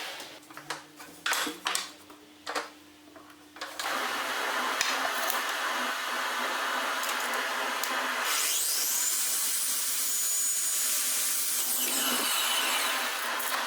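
A few short knocks and clicks, then from about four seconds in a power tool runs steadily, its sound shifting for a few seconds in the middle.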